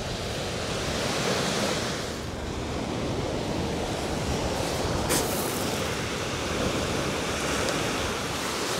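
Small waves breaking and washing on a shingle beach, a steady surf noise with wind on the microphone. A single short click comes about five seconds in.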